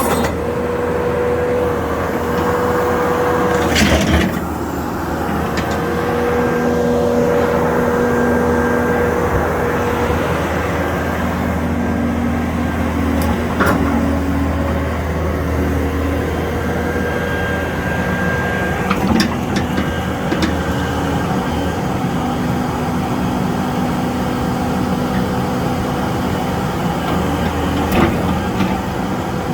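A John Deere 590D excavator's diesel engine running steadily, with a whine that comes and goes and a few sharp clanks spread through.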